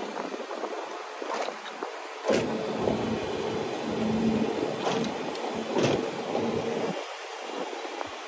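Resort buggy (golf cart) driving, with air rushing past the microphone and a few sharp knocks. About two seconds in it grows louder with a faint steady hum, which eases off near the end.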